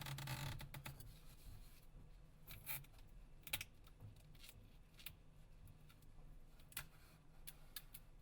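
Faint, scattered light clicks with a short scratchy rustle in the first second, over near silence.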